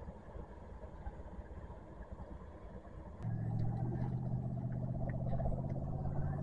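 Faint low rumble of outdoor background noise; about three seconds in it gives way to a steady, low motor-like hum with a few light clicks.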